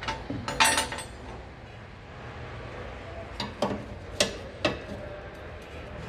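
Sharp metallic clicks and knocks from a car's rear suspension being worked by hand from underneath while checking for a noise: a quick cluster in the first second, then four more around four seconds in.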